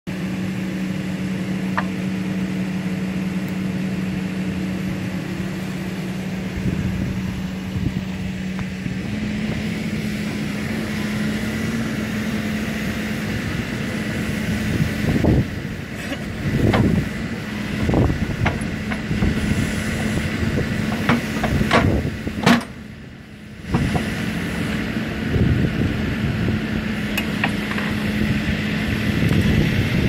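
Excavator's diesel engine running steadily, its pitch stepping up slightly about nine seconds in. In the second half, a series of sharp metal clanks and knocks as the hydraulic quick coupler is brought onto the bucket and locks it.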